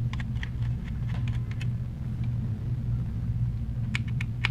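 Small metal clicks and ticks, scattered and irregular, from a precision screwdriver and tweezers working the tiny screws out of an iPhone 6's internals, over a steady low hum. A few sharper clicks come near the end.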